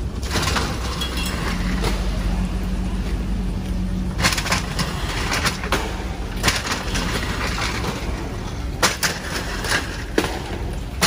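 An engine running steadily with a low rumble, over scattered sharp knocks and clatters. A steady hum sounds for the first few seconds.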